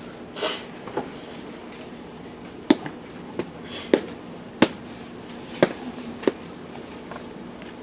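About eight sharp knocks and clicks at irregular intervals, over a steady low room hum.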